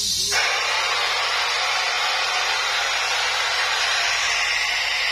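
Filtered test noise played through a large outdoor sound system during a sound check: a steady hiss in the treble that, about a third of a second in, suddenly widens downward to take in the midrange too, as the system is tested band by band.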